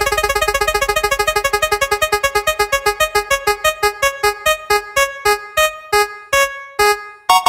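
Spinning-wheel sound effect: short electronic keyboard notes, one for each segment passing the pointer, starting at about ten a second and slowing steadily to about two a second as the wheel coasts to a stop.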